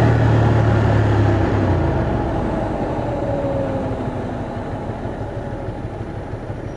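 Ducati Monster 620's air-cooled L-twin engine heard from the rider's seat while riding: a strong low engine note at first, then the note falls and the sound fades steadily as the bike slows toward a red light.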